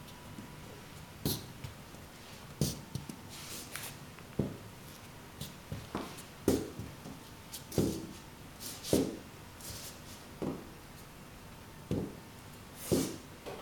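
Slow, uneven footsteps of Sendra leather cowboy boots knocking and scuffing on a tile floor, about ten steps with a second or so between them.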